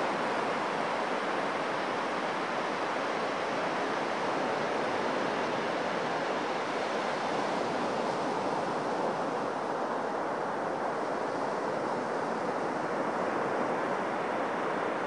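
Surf breaking on a sandy beach: a steady, unbroken rush of waves.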